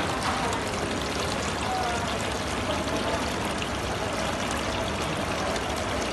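Water pouring steadily from the spout of a decorative artificial-rock fountain and splashing into the pool below.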